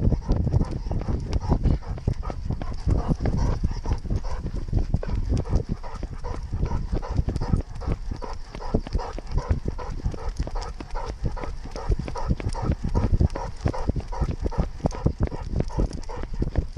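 A running weimaraner's rhythmic footfalls on a trail, heard from a camera strapped to the dog, with the mount jolting at every stride and a low rumble of wind and handling noise.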